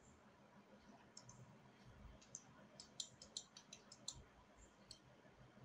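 Faint clicks of a computer mouse over quiet room tone, a few scattered ones and a quick run of about seven about three to four seconds in.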